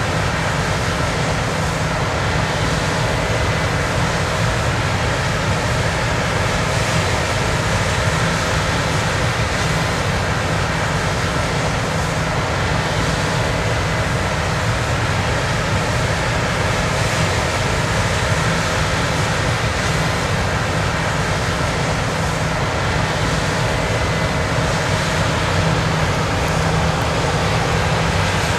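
John Deere X9 combine running steadily while harvesting soybeans: a constant machinery drone, strongest in the low range, with a few faint steady tones above it.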